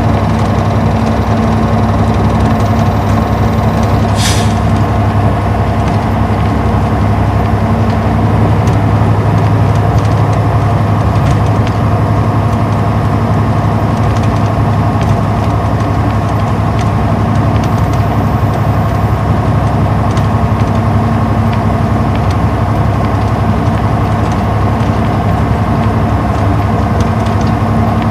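Inline-six diesel engine of an Isuzu Erga city bus running steadily while the bus drives along, heard from inside the cabin with road noise. A short hiss comes about four seconds in.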